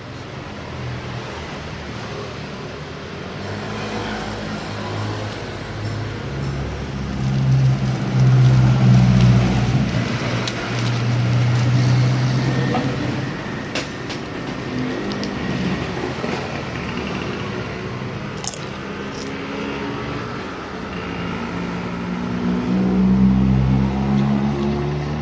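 Road traffic passing by, engines swelling and fading as vehicles go past, loudest twice, with a few short clicks in between.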